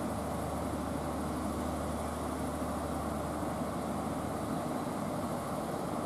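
Northern Ireland Railways Class 3000 diesel multiple unit's underfloor diesel engines idling steadily with a constant low hum while the train stands still.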